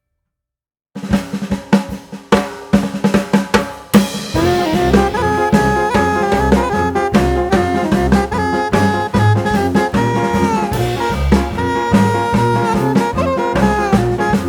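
Background music: after about a second of silence a drum kit plays alone, and about four seconds in the full band comes in with held melody notes over a steady beat.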